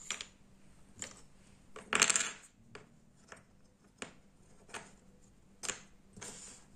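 Wooden jigsaw puzzle pieces clicking and knocking against each other and a wooden tabletop as they are picked up and fitted together: a scatter of light taps, with a louder clatter about two seconds in.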